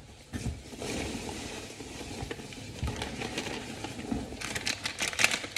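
Packaging and parts of a car lighting kit being handled: plastic rustling and crinkling, with a quick run of sharp crackles and clicks near the end.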